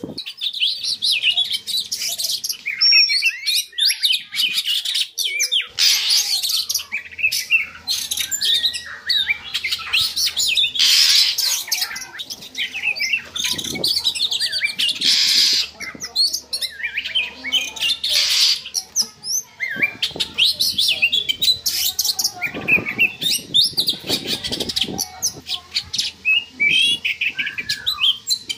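Oriental magpie-robin (kacer) singing continuously: a fast, varied run of sharp chirps, whistles and gliding notes, the excited song of a bird in breeding condition.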